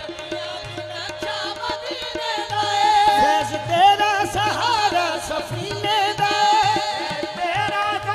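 Qawwali music: a lead singer's ornamented, wavering vocal line held over harmonium and tabla.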